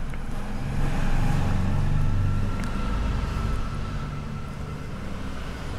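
Low rumble of a road vehicle passing by, swelling about a second in and slowly fading, with a faint thin whine in the middle.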